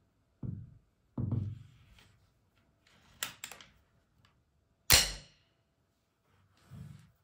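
Gevarm .22 LR carbine handled on a cloth-covered table: two dull thumps as it is set down, a few light metallic clicks, then one loud, sharp metallic snap from its action about five seconds in, and a softer thump near the end.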